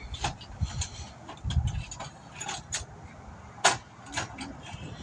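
Metal hand tools and sockets clinking and clattering, with scattered light clicks, a couple of low thumps, and one sharper, louder click about three-quarters of the way through.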